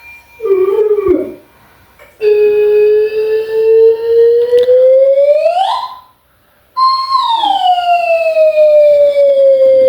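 A loud, siren-like wail played through a speaker: one long tone that rises slowly in pitch, breaks off, then comes back high and slowly falls.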